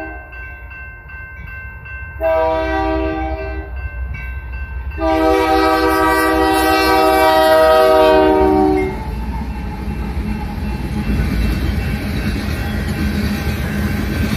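Union Pacific diesel locomotive's air horn sounding a chord: a short blast about two seconds in, then a long blast held as the locomotives pass, the close of a grade-crossing horn signal. After that, the steady rumble and clatter of the train's coal cars rolling past.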